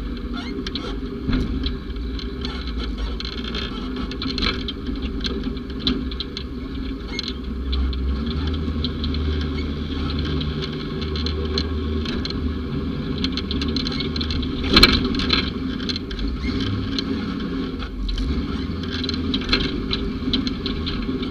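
Mule utility vehicle's engine running under way over rough ground, with frequent rattles and knocks. There is one loud jolt about fifteen seconds in.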